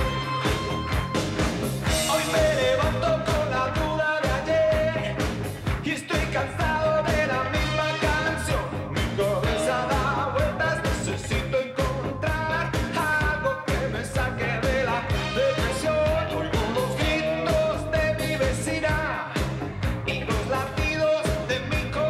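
Pop-rock song played by a band with drums, electric guitar and saxophones, with a man singing the lead vocal over a steady beat.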